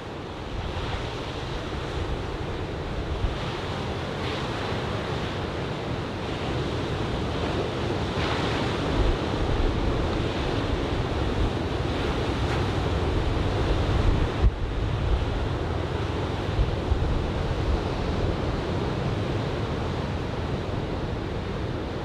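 Ocean surf from a typhoon swell, a steady wash of breaking waves that swells and eases a little. Wind buffets the microphone underneath it.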